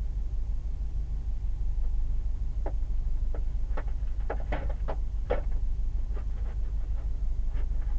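Car driving on lake ice: a steady low rumble, with a run of irregular sharp knocks starting about three seconds in and dying away near the end. This is the abnormal noise from the left rear of the car.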